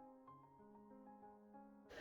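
Soft background music: a slow melody of held notes over a few sustained chords.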